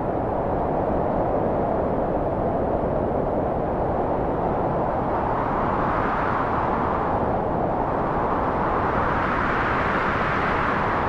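Loud, steady rushing rumble with no tones in it, swelling brighter twice: in the middle and again near the end.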